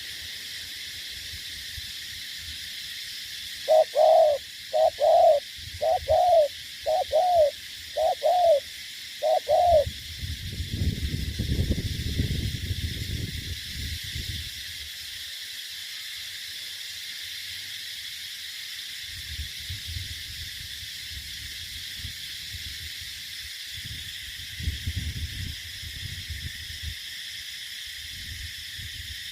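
Spotted dove (cu gáy) cooing: a run of six rounded, arching coos about two thirds of a second apart, over a steady high hiss, followed by a low rumble.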